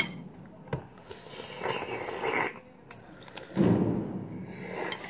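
Eating sounds: spoons clicking against ceramic bowls a few times, between longer stretches of slurping and chewing as beef bone-marrow soup (bulalo) is eaten.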